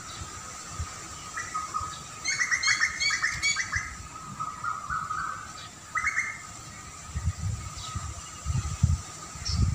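Birds chirping: a burst of rapid, repeated chirps about two to four seconds in and a shorter one near six seconds, over a steady faint high tone. Low, irregular rumbles come in during the second half.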